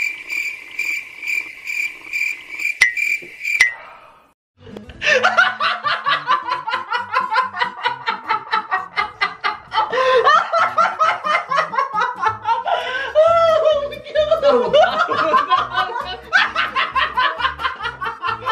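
A chirping-crickets sound effect, a steady high chirp pulsing about three times a second, for the first few seconds. After a brief pause, a man bursts into long, rapid, loud laughter.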